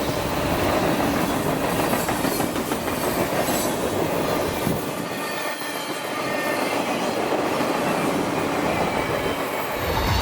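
A train running along the rails, a steady rumble and rail noise with faint high-pitched tones.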